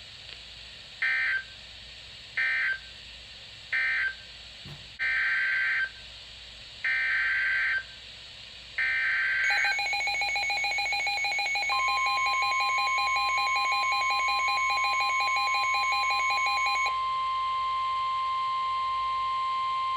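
Emergency Alert System signals. The first three are short bursts of warbling data tone, the end-of-message code closing one alert. The next three are longer bursts of the same tone, the SAME header opening the next alert. Then comes the EAS two-tone attention signal, joined about two seconds later by a steady single tone near 1 kHz, which carries on alone for about three seconds after the two-tone signal stops.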